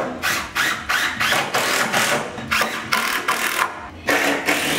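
Cordless drill driving screws into the timber of a wooden staircase in a run of short, rapid bursts, then a steadier run near the end.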